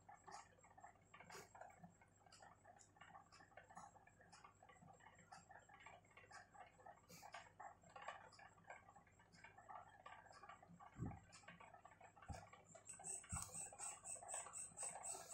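Faint scratching and ticking of a ballpoint pen writing on lined notebook paper, with three soft low knocks near the end.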